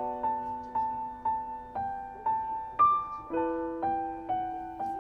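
Gentle background piano music: a simple melody of single notes struck about twice a second over held lower notes.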